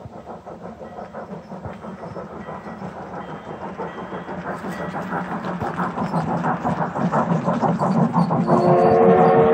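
G-scale model train running past on outdoor track: a rhythmic clatter, about five beats a second, growing louder as it approaches. Near the end, a chord of several steady tones comes in and is held.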